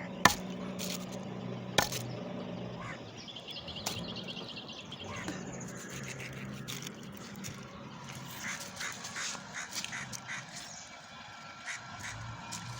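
Butchering a rooster with a knife: two sharp knocks in the first two seconds, then a quick rattling run of pulses for about two seconds, and scattered small clicks and taps near the end.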